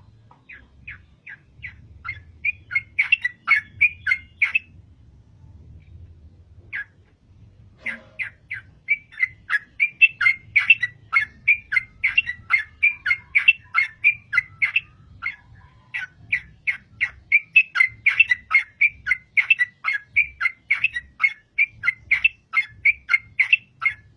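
Trucukan (yellow-vented bulbul) singing hard, long runs of short, loud chirping notes, several a second, broken by a few brief pauses.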